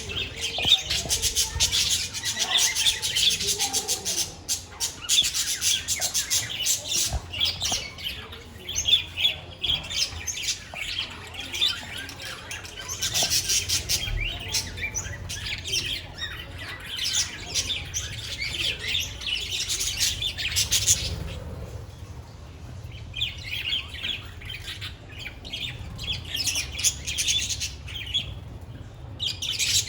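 A flock of budgerigars chirping and chattering together in rapid, overlapping calls that keep going, with brief louder squawks.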